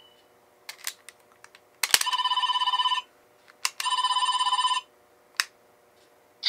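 SP1 License toy communicator playing its electronic call sound: two phone-style rings about a second each, a rapidly warbling tone with a short gap between them. Sharp plastic clicks from the toy's flip hinge and buttons come before, between and after the rings.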